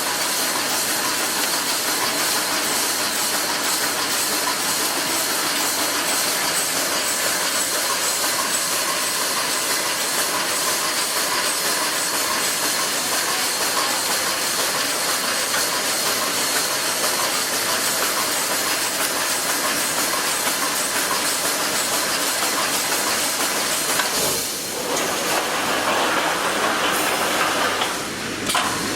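Automatic wire mesh panel welding machine running, a steady loud hiss that dips briefly twice near the end.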